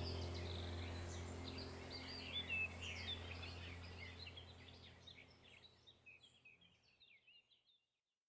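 Small birds chirping and twittering over a low steady drone, the whole fading out gradually to silence near the end.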